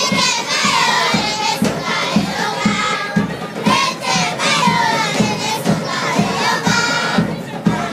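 A group of girls singing and chanting together, with shouts from the crowd, over a steady beat.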